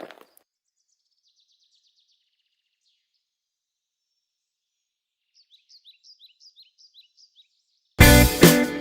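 Faint bird chirps: a soft trill early on, then a run of short falling chirps at about three a second. Loud guitar music cuts in abruptly near the end.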